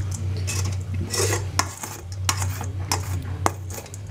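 Metal spoon scraping and clinking against a stainless steel colander in irregular strokes as cold, sticky cooked pasta twists are worked loose into a plastic bowl; the pasta has clumped after cooling in the colander. A steady low hum runs underneath.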